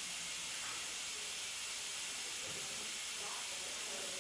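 Steady hiss with nothing else clearly heard: the recording's own background noise.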